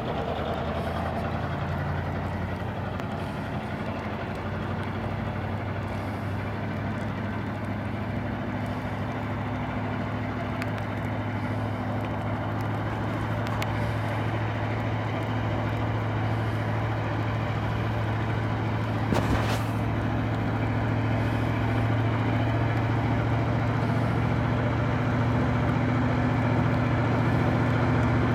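Lattice-boom truck crane's diesel engine running steadily as the crane drives along a wet road, growing slowly louder as it approaches, with tyre hiss on the wet surface. A single short sharp sound cuts in about two-thirds of the way through.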